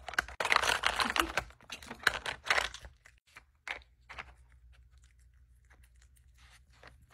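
Chihuahua working a plastic puzzle feeder: rapid clicking and crunching as it noses the plastic pieces and eats the kibble, busiest over the first three seconds and then thinning to scattered single clicks.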